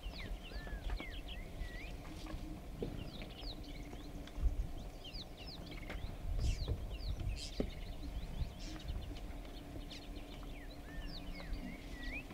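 Wild birds chirping all through with many short, quick sweeping calls, over a low rumbling background with a few dull thumps from the buffalo herd and elephants moving about.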